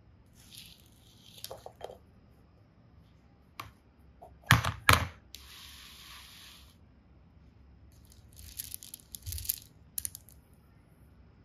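Hands handling small plastic toys and coloured decorative pebbles: light rustling, then two sharp knocks about halfway through, the loudest sounds here, followed by a short hiss, and near the end a cluster of small clicks and rattles as pebbles are picked through.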